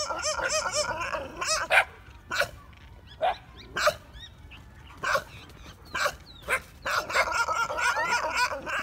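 Dogs barking and yelping: a wavering, high-pitched run of yelps at the start and again near the end, with single sharp barks every half second to a second in between.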